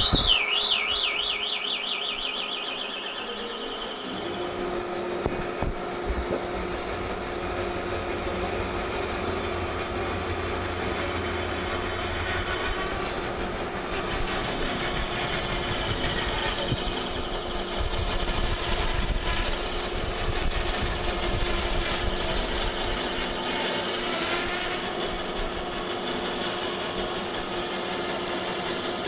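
Large resaw bandsaw with a 4.5 horsepower motor starting up with a sudden rise and a wavering high squeal that fades over the first few seconds, then running steadily with a hum while its blade rips lengthwise through a tall section of log.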